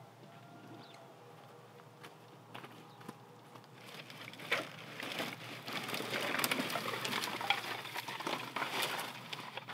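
Dry leaves and straw rustling and crackling as they are handled and gathered up, starting about four seconds in, with scattered sharp crackles.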